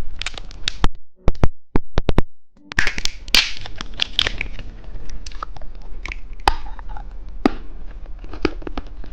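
Plastic candy wrapper being handled and unwrapped from a lollipop: a quick run of sharp clicks and taps about a second in, then crinkling and rustling of the plastic with scattered clicks.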